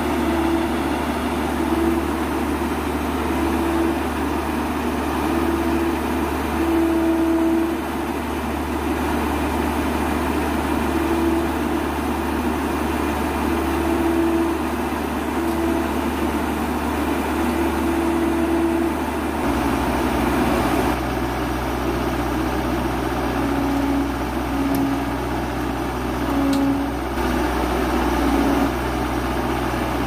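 Heavy diesel engine running steadily, its low note changing about two-thirds of the way through.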